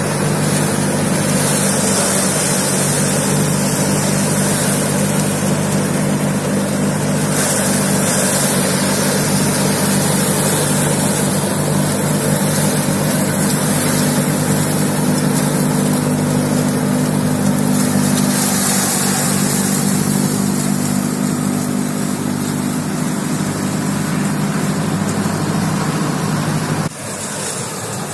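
Diesel tractor engine running steadily under load, driving a PTO-powered paddy straw chopper through rice stubble; the chopper's cutting rotor and the shredded straw add a broad whirring noise over the engine. The level drops abruptly near the end.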